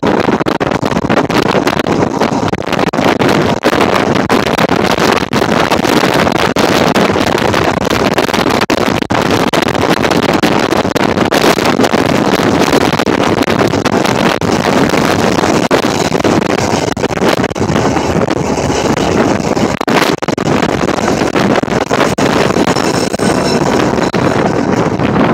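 1934 Blackpool boat tram moving along the rails: a loud, steady rush of wind on the microphone over the car's running noise, with frequent small clicks and knocks.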